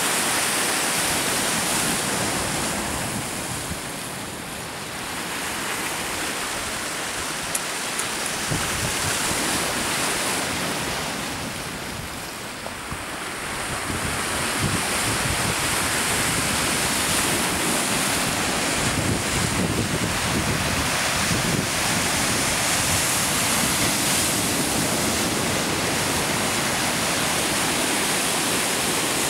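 Lake waves washing against an icy shore through floating slush and pancake ice, a steady rushing that fades a little twice and builds again, with wind buffeting the microphone.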